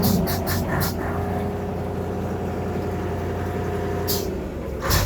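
Heavy diesel truck engine running steadily with a faint whine over its drone. Short hissing bursts come in a quick cluster at the start and again near the end.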